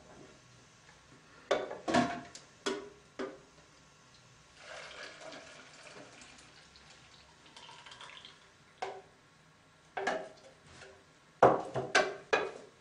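Jugs of apple juice and pulp containers being set down and shifted on kitchen scales and a countertop: a scatter of sharp knocks, loudest in a cluster near the end, with a quieter stretch of liquid sloshing in the middle.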